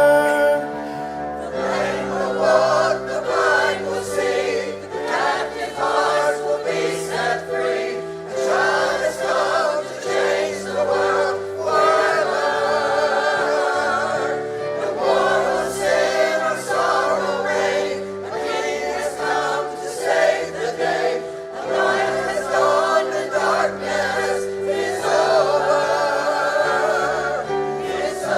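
Choir singing a Christmas worship song with instrumental accompaniment, held chords over a bass line that changes every second or two.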